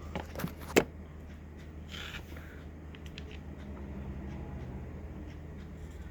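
Three short sharp clicks or taps in the first second, the last the loudest, then a steady low hum with faint small handling noises.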